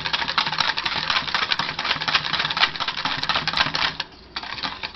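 Wire whisk beating a thin batter in a stainless steel bowl: a fast, continuous clatter of the wires clicking against the metal, with a brief pause near the end.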